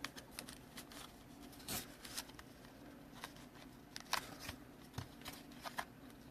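Faint, scattered clicks and light rustles of trading cards and plastic sleeves being handled, over a steady low hum.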